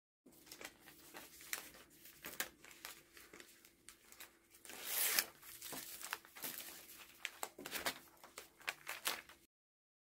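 Clear plastic bags crinkling and rustling as hands open and handle them, in short irregular crackles with a louder rustle about five seconds in. A faint steady hum runs underneath, and the sound cuts off suddenly near the end.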